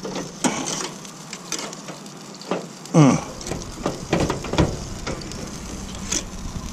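Stainless steel tongs clicking and scraping against a grill grate as chicken leg quarters are turned over, over a steady sizzle of the cooking meat. About three seconds in, a short falling tone is the loudest sound.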